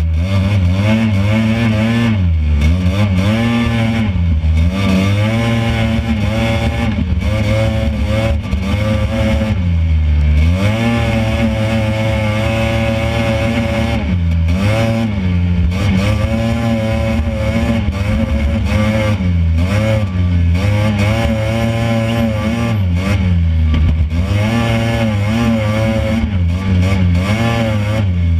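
Dune buggy engine running hard and revving up and down over and over as it drives across the sand, its pitch rising and falling every few seconds.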